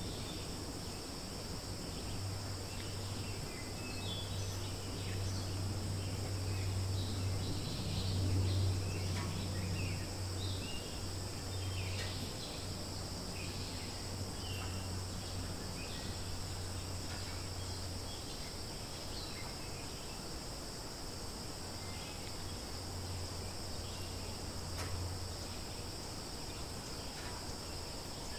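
Outdoor ambience: a steady, high-pitched insect chorus droning without a break, with scattered short bird chirps and a low steady hum underneath.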